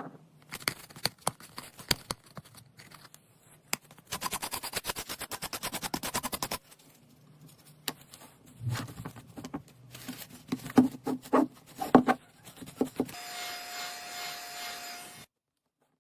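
Sharp small clicks and taps, with a fast even run of ticks lasting about two and a half seconds. Near the end a steady hiss with a held tone comes in and cuts off suddenly.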